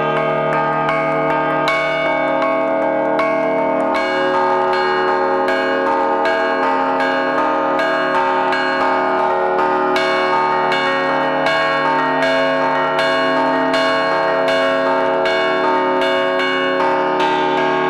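Large bronze church bells struck by hand with a wooden mallet, a few strikes a second, their deep tones overlapping and ringing on.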